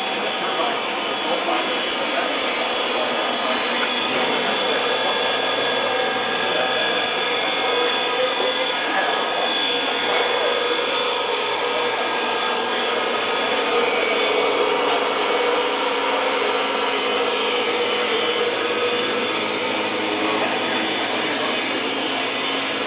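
Steady mechanical rushing noise, even and unbroken, with faint voices under it.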